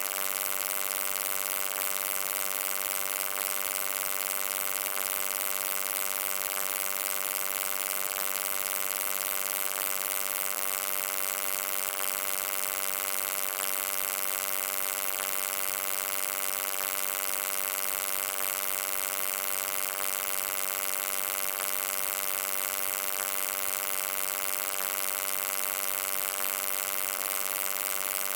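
Steady electric hum: a buzzy drone made of many stacked pitches over a bright hiss, unchanging throughout.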